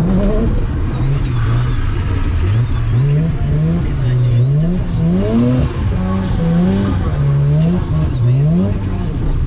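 Mazda FC RX-7's turbocharged 13B rotary engine revving hard while drifting, its pitch climbing and falling again and again as the throttle is worked, with a higher whine rising and falling along with it.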